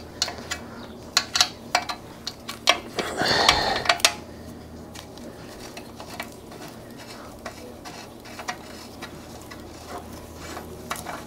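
Light metallic clicks and clinks as an oxygen sensor is turned by hand into its threaded bung on a titanium exhaust header. The clicks cluster in the first four seconds with a short rustle about three seconds in, then thin out to a few faint ticks.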